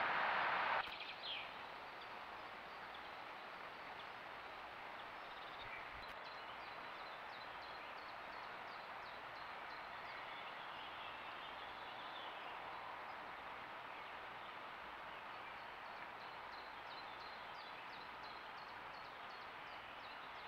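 Steady outdoor hiss picked up by a trail camera's microphone, louder for the first second until the clip changes. There are faint bird chirps: one short falling chirp just after the change, then light high chirps about twice a second through the second half.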